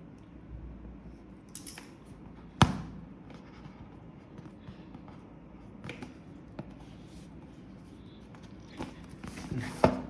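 Scissors snipping and picking at a keyboard box's plastic shrink wrap, with scattered clicks and crinkles and one sharp snap about two and a half seconds in; the wrap is hard to cut.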